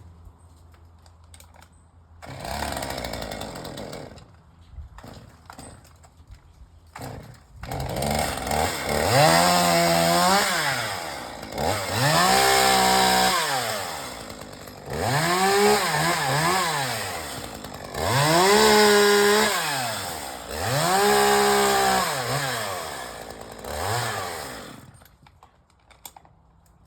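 Chainsaw running: a short burst about two seconds in, then revved up and down in six long surges, each pitch rising and falling over about two seconds.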